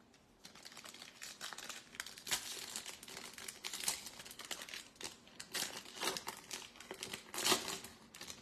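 Foil wrapper of a Topps Stadium Club Chrome trading-card pack crinkling as it is handled and torn open by hand. It is a dense crackly rustle of many small sharp crackles, starting about half a second in.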